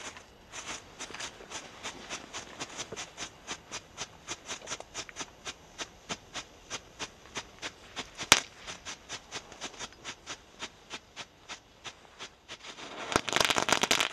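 A Nico Strobe Flash ground fountain burning, its strobe composition popping in a steady rhythm of about three pops a second, with one much louder crack a little past the middle. Near the end it breaks into a short, loud, dense run of crackling as it throws a wide spray of sparks.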